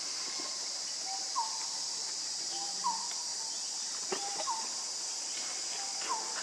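Steady high-pitched drone of insects, with a short two-note bird call repeating about every one and a half seconds and a single sharp click about four seconds in.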